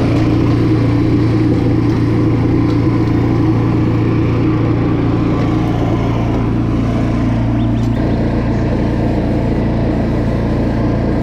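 Gas-engine pressure washer running steadily at a constant pitch, with a strong low hum.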